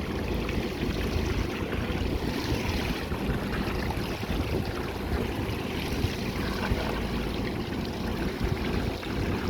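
Steady low rumble and rushing water noise aboard a fishing boat at sea.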